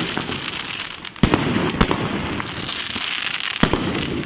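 Consumer fireworks combination of crossette and palm effects going off: dense crackling throughout, with sharp bangs about a second in and again near the end.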